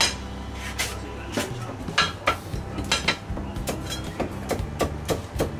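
Cleaver chopping crispy-skinned roast pork on a thick wooden chopping block: a string of sharp chops, coming faster toward the end, over a steady low hum.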